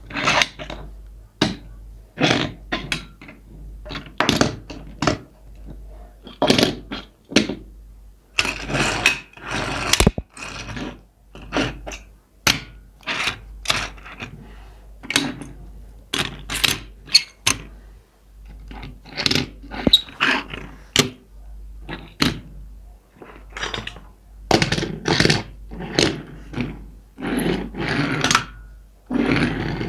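Toy cars and their packaging handled close to the microphone for ASMR: irregular sharp knocks and thunks, one or two a second, with a few longer scrapes in between.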